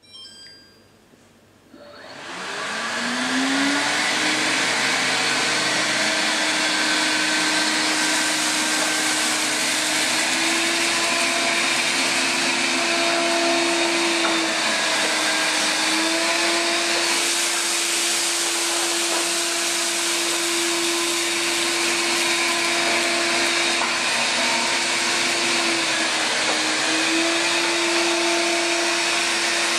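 Samsung PowerBot VR9000 robot vacuum starting up: a few faint beeps, then its suction motor spins up over a couple of seconds, the pitch rising, and runs steadily and loudly while the robot cleans flour, sugar and rice off a tiled floor.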